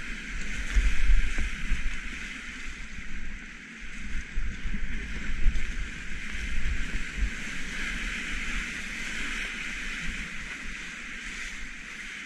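Rushing whitewater of a big river rapid heard from a kayak at water level, a steady hiss of breaking waves. Irregular low rumbles and buffeting on the microphone, strongest about a second in and again near the middle, as waves and spray hit the camera.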